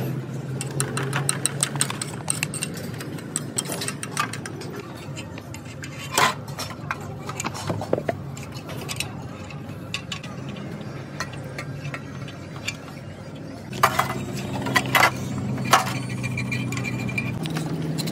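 Metal engine parts and hand tools clinking and tapping against each other: a string of sharp, irregular clicks and knocks. A steady low hum sits underneath for the first couple of seconds and returns near the end.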